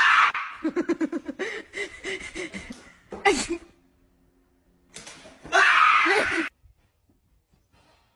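A sudden loud outburst, then a person laughing hard in rapid pulses of about four a second. A second loud burst of laughter comes about five seconds in and stops abruptly.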